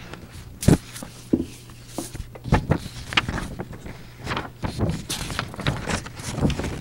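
Papers being handled and shuffled on a meeting table, with irregular sharp knocks and taps over a steady low hum.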